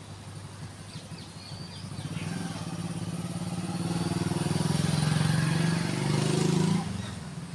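A motor vehicle's engine passing by: it grows louder from about two seconds in, is loudest around five to six seconds, then fades quickly near the end.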